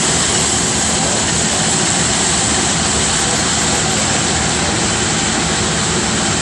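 Hydraulic diamond wire saw running while cutting reinforced concrete: a loud, steady machine noise with a strong high hiss that does not change.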